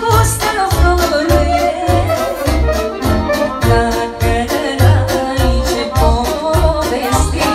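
Live manele music: a clarinet playing an ornamented melody over a steady pulsing bass beat, with a woman singing into a microphone.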